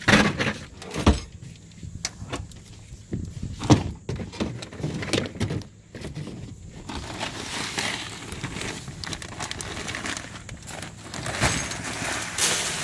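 Knocks and clunks of gear handled against a plastic horse-trough bait tank. About seven seconds in, a steady rushing hiss of water starts as the tank's pump churns it.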